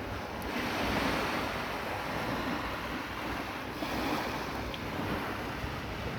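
Sea waves breaking and washing in, swelling about half a second in and again near four seconds, with wind buffeting the microphone.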